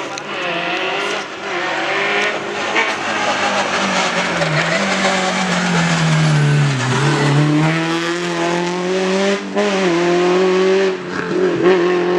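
Rally car engine at high revs through a stage, its pitch dropping sharply about seven seconds in and climbing again, with short breaks near the end as the driver shifts gears and lifts off the throttle.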